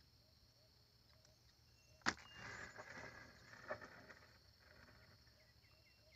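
Mostly faint sound as a gillnet is hauled by hand over the side of a wooden canoe: one sharp knock about two seconds in, then about a second of water splashing and dripping off the net, and a smaller click a little later. A faint steady high insect drone runs underneath.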